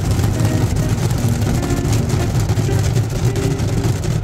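Automatic tunnel car wash heard from inside the car's cabin: water spray and spinning cloth brushes working over the body and windshield, a loud, steady rumble with hiss.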